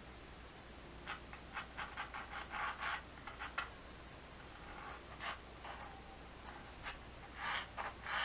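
Pencil sketching: a run of short, quick scratching strokes, a pause, then a few more strokes near the end.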